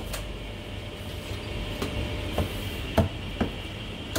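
Heavy cleaver chopping marinated duck on a thick round wooden chopping block: one strike at the start, a lull with a few faint taps, then two sharp chops about half a second apart around three seconds in.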